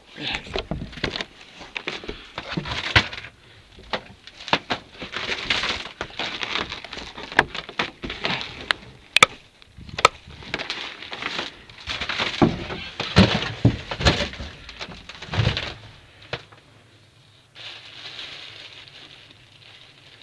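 Close handling noises: a run of irregular knocks, cracks, clicks and scrapes that stops about 16 seconds in, followed by a faint steady hiss.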